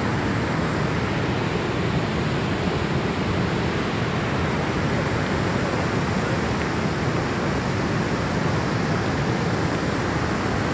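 Muddy flash-flood torrent rushing past, a steady, unbroken rush of churning water.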